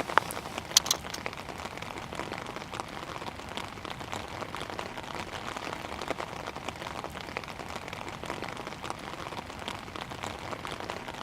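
Steady rain-like patter: a dense, even crackle of many small drop clicks, with two sharper clicks in the first second.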